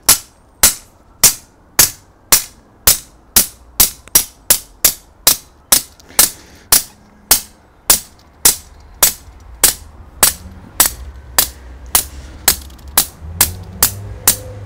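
A hammer repeatedly striking the driving head on a copper earth rod, sharp metallic blows in a steady rhythm of about two a second. The rod is being driven into soft garden soil.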